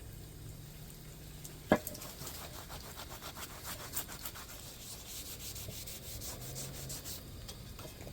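Quick, irregular rubbing and scraping strokes on a steel part, with one sharp knock just under two seconds in.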